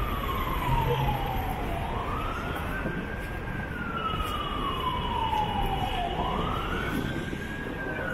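Emergency vehicle siren wailing: its pitch sweeps up quickly, then falls slowly, repeating about every four seconds, over steady street noise.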